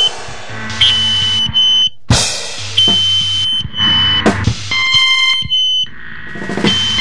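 Noise-rock band recording: drums and guitar playing in stop-start bursts, with a shrill, steady high tone that cuts in and out with each burst.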